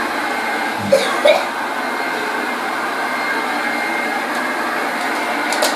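A 1969 Hoover Junior 1354 upright vacuum cleaner running steadily on carpet: an even motor hum with a thin high whine. It is running nice and smooth. There are two brief short sounds about a second in.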